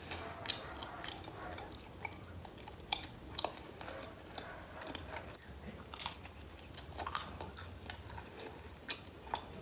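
Close-miked chewing of a cheese, pork loin and pineapple pizza: a string of short, wet mouth clicks and smacks at irregular intervals.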